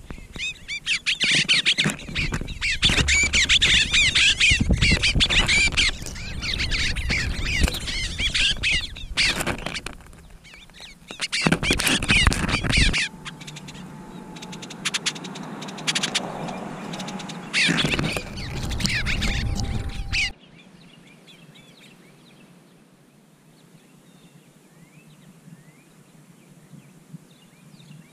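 Small songbirds chirping and chattering rapidly, with a low rumble underneath. About twenty seconds in, the sound drops off suddenly and only faint, scattered chirps remain.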